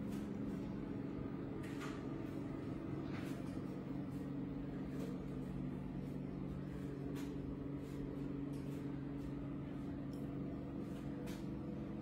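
A steady low mechanical hum of several fixed pitches, with a few faint clicks.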